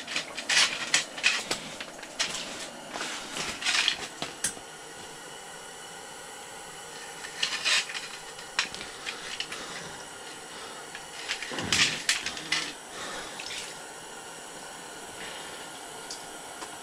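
Clicks, rustles and wet splashes from handling a freshly caught fish and tackle at the ice hole, busiest in the first four seconds, then a few scattered knocks over a faint steady hum.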